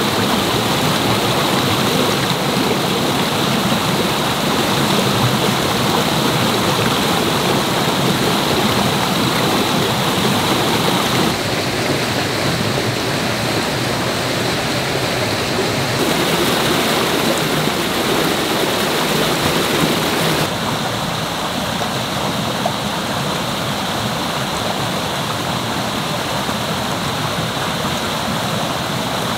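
Creek water rushing over rocks and small cascades, a steady loud rush that shifts a little in tone and loudness a few times.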